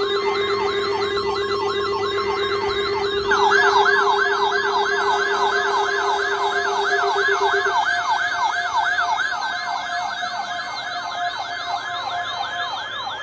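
Electronic siren tones: a yelping wail sweeping up and down about twice a second over a steady low tone, joined about three seconds in by a louder, faster yelp of about three to four sweeps a second. The steady tone stops about two-thirds of the way through.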